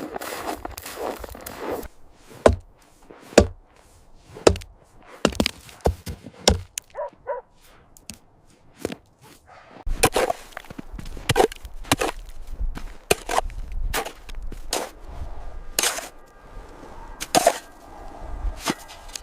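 A series of sharp knocks at uneven intervals, like chopping blows on wood. About halfway through a low rumble starts and keeps on under further knocks.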